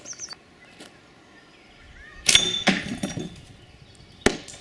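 A slingshot shot at a champagne bottle: one sharp crack near the end as the frozen super pykrete projectile (wet newspaper frozen solid) hits the bottle and breaks up, leaving the bottle whole. About two seconds in there is a brief clinking sound with a ringing tone.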